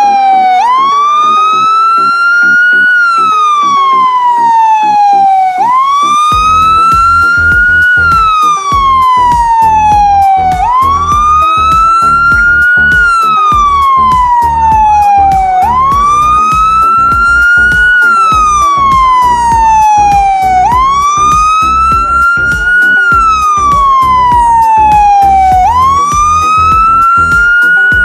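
Emergency-vehicle siren wailing, its pitch rising and falling in a slow, regular cycle about every five seconds. About six seconds in, a heavy vehicle's low engine rumble joins underneath.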